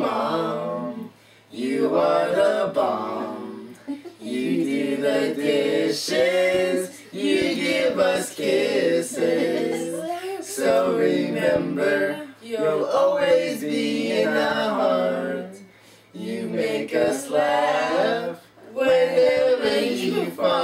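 Children singing a song of their own without accompaniment, in sung phrases of a few seconds separated by short pauses for breath.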